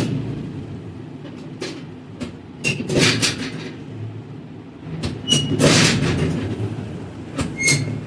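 A chiropractic adjustment on a treatment table: a series of irregular knocks and thuds with a few very brief high squeaks, as the patient's body is handled and shifted.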